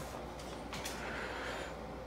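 Faint handling noises from packing lunches at a kitchen counter: a light click a little under a second in and a soft rustle, over a low steady hum.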